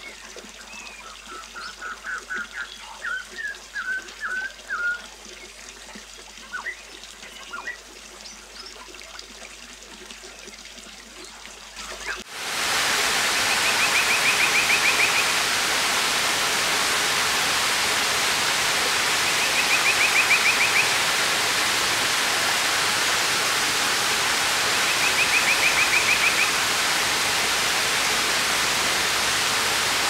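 Birds chirping faintly for about the first twelve seconds. Then a sudden cut to steady, much louder rain falling on wet pavement and a puddle, with a short high trill heard three times through it.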